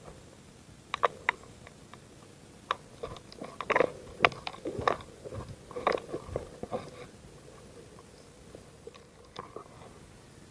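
Footsteps crunching on dry leaf litter and twigs, irregular sharp crunches and clicks that bunch up in the middle and thin out after about seven seconds.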